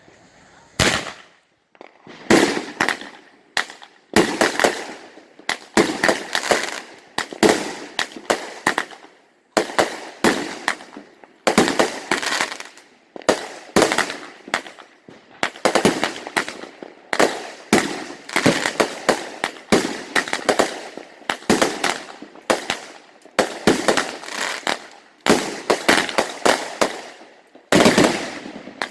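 Consumer multi-shot firework cake firing: a fast, steady string of bangs and bursts, several a second, going on without a break.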